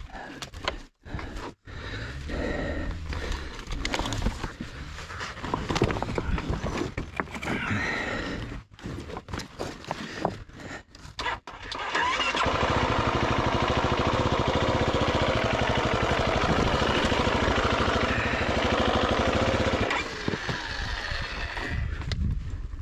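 Irregular scraping and knocking of a KTM Freeride dirt bike being handled on rocks, then about halfway the bike's single-cylinder engine starts and runs steadily with an even firing rhythm for about eight seconds, dropping lower a couple of seconds before the end.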